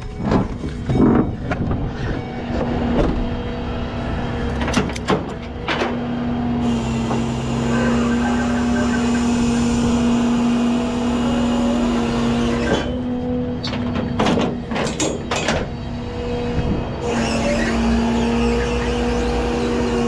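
Peterbilt rollback tow truck's hydraulic winch running, pulling a box truck up the bed: a steady whine, with a run of clanks and knocks in the first six seconds and again a little past halfway.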